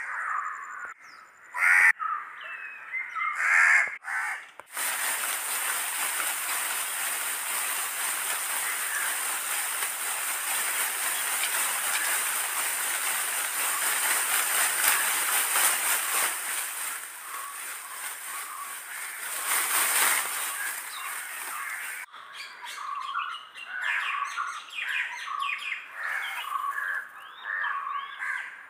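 Birds calling: loud harsh calls in the first few seconds, then a dense, continuous chorus of many birds that cuts off sharply about twenty-two seconds in, followed by quick separate chirps.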